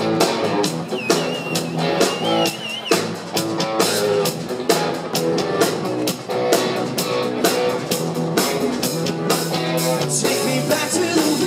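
Live rock band playing: electric guitars over a drum kit keeping a steady, driving beat.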